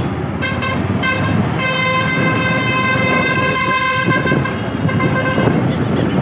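A vehicle horn sounding a few short toots, then held for about three seconds, then one last short toot, over the steady rumble of road and engine noise.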